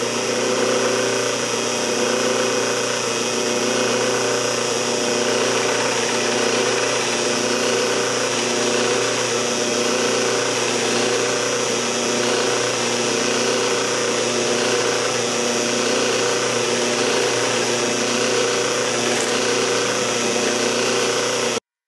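Drill press running steadily with a 1-inch Forstner bit boring holes through pallet wood. The motor and spindle drone is even, with the cutting noise of the bit in the wood, and it cuts off suddenly near the end.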